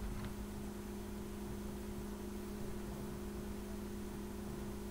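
Steady low hum with a faint hiss underneath: background room tone, with no distinct handling or splashing sounds.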